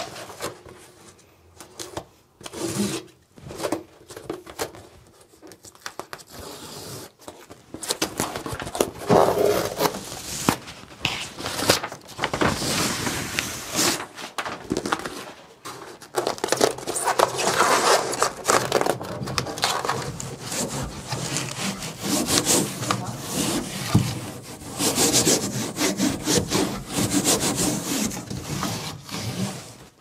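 Foil-backed neoprene insulation sheet being handled, rubbed and pressed by hand onto the metal body panels, an irregular scratchy rubbing and crinkling. It is sparse for the first several seconds and becomes almost continuous from about eight seconds in.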